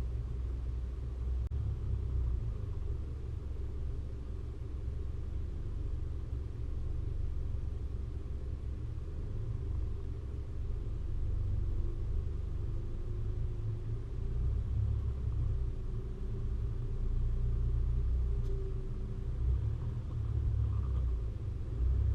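Four-wheel-drive vehicle driving, a steady low rumble with a faint engine tone that drifts slightly in pitch.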